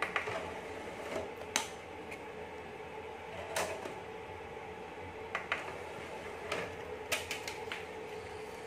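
Disc tray of an HDT Premier 98 Mini karaoke DVD player being worked by hand: button presses, the tray clacking open, a disc set on it and the tray drawn shut, heard as a string of sharp clicks and clacks over a steady faint hum.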